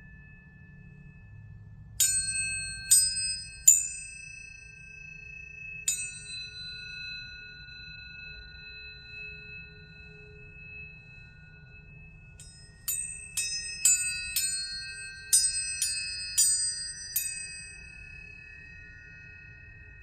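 Planetary tuning forks struck one after another. Each gives a bright metallic tap, then rings on in a clear, steady high tone. Four strikes come in the first six seconds, then a quicker run of about ten strikes about two thirds of the way in, their tones overlapping.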